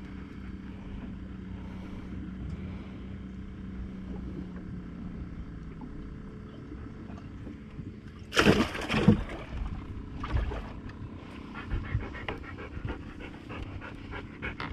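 Yellow Labrador retriever panting over a steady low hum, with two loud short sounds that slide down in pitch, about eight seconds in and again at the very end.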